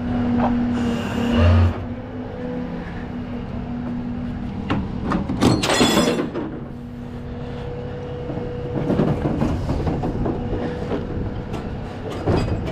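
A heavy steel toolbox being handled on a rollback tow truck's steel diamond-plate deck, with metal clanks, scraping and rolling clatter over a steady low hum. There is a heavy thump about a second and a half in, a ringing metallic screech-scrape around six seconds, and irregular clatter near the end.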